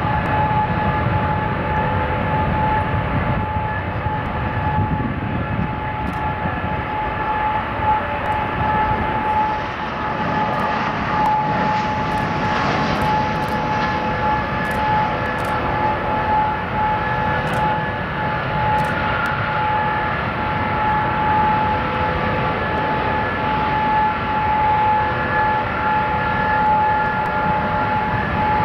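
Jet airliner engines running with a steady whine of several fixed tones over a broad rushing noise, holding an even level.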